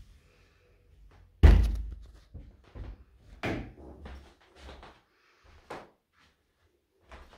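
A wooden door thuds shut about one and a half seconds in, followed by several quieter knocks and bumps.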